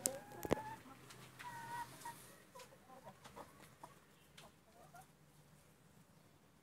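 A chicken clucking in short calls through the first five seconds or so, then going quiet. Two sharp clicks come in the first half-second.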